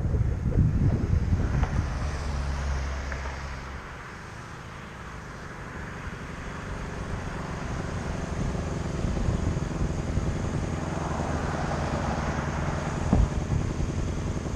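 Motorcycle engine running steadily, with wind buffeting the microphone. It fades to its quietest about four seconds in, then slowly grows louder again, with a single sharp click near the end.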